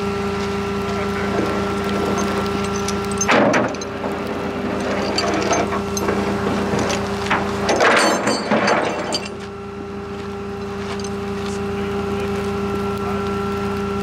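A vehicle engine running steadily, with two louder, noisy disturbances about three seconds in and again around eight to nine seconds in.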